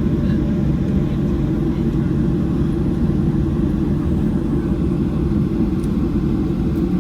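Steady low rumble inside the passenger cabin of a Boeing 737-700 taxiing after landing.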